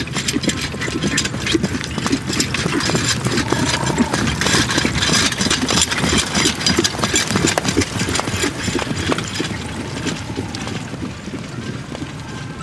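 Hoofbeats of a pair of horses pulling a four-wheeled carriage over grass, mixed with the rumble and rattle of the carriage. It grows louder as the turnout passes close, about midway, then fades as it moves away.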